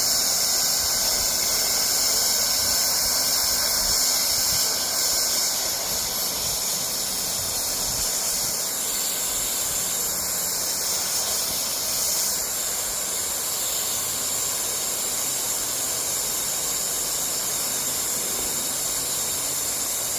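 Leister hot-air plastic welder blowing a steady hiss as it heat-welds a TPO roofing membrane seam. It is set hotter than normal so the old, aged membrane will fuse to itself.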